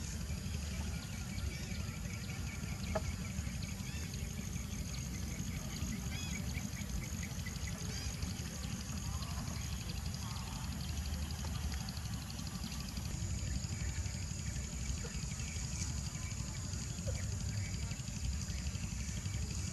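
Low, steady wind rumble on the microphone, with a continuous high chirping from small creatures in the grass and trees behind it.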